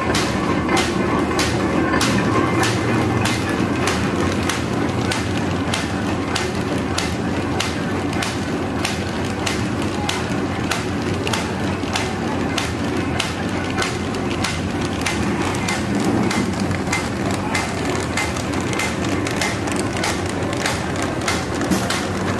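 Paper bag making machine running steadily: a continuous mechanical rumble of gears and rollers with sharp, regular clacks repeating about two to three times a second.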